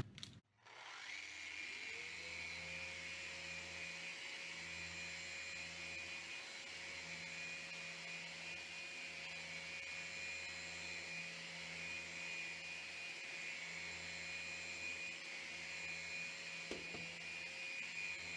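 Random orbital sander with a 1500 grit disc spinning up about a second in, then running with a steady whine while sanding a painted acrylic glass panel. This is one of the fine-grit stages that take a scratch out before polishing.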